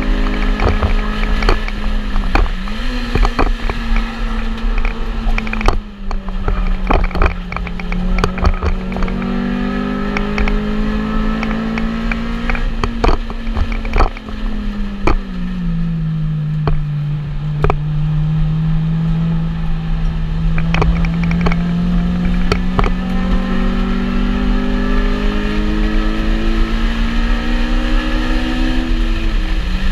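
A Honda Civic track car's engine heard from inside the cabin at lapping pace, its pitch climbing and dropping with throttle and gear changes. The note falls clearly about 14 seconds in, sits low, climbs slowly for most of the rest, and drops again near the end. Sharp clicks and rattles come and go throughout.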